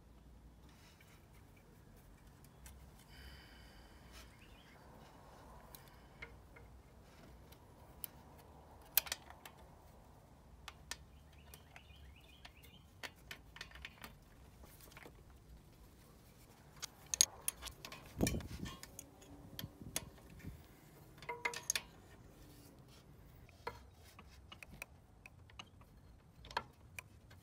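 Faint, scattered small metallic clicks and clinks of hand tools and the oil drain plug being threaded back into a Honda Ruckus 50 scooter engine, with a busier run of louder clinks and a low thud about two-thirds of the way through.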